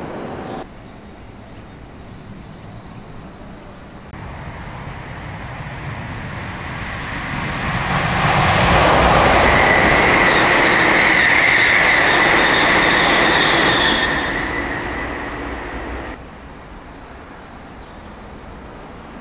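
Electric train approaching, running close past and receding, with a steady high ringing tone over the rolling noise at its loudest; the sound cuts off suddenly near the end.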